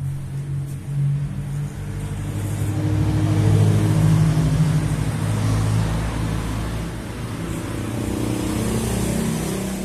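Corded electric hair clippers buzzing as they cut short hair, a steady low hum that swells loudest a few seconds in while they run over the head.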